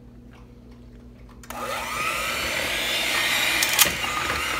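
Electric hand mixer switched on about a second and a half in, then running steadily with its beaters churning softened butter in a bowl.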